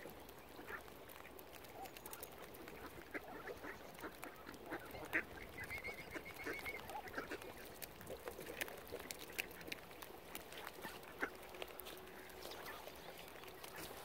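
Mallard ducks quacking and calling in short, scattered notes, mixed with light clicks and taps.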